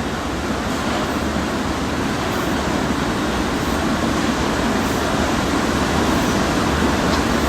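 Steady mechanical noise with a low hum, growing slightly louder.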